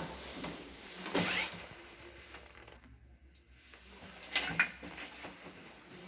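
Old floor creaking underfoot as someone walks: short squeaky creaks about a second in and again at about four and a half seconds.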